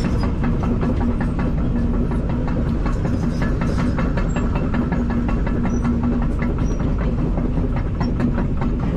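Kobelco SK210LC-9 excavator at work: its diesel engine and hydraulics running steadily with a droning hum, with a continual run of rattling clicks and clanks from the machine.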